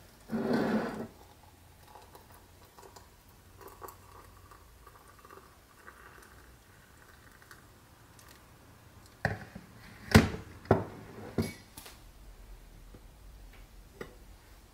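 Hot water trickling from a gooseneck kettle through a metal tea strainer into a ceramic mug, faint beneath a short loud scrape near the start. About nine seconds in come four sharp clinks and knocks of ceramic and metal as the kettle is set down and a lid goes onto the mug.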